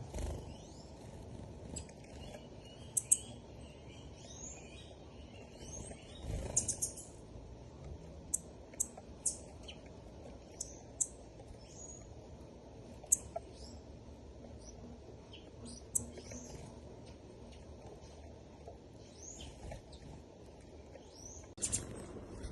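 Small birds chirping: many short, high, sharp chirps scattered irregularly, with a busier cluster about six seconds in and again near the end, over a steady low background noise.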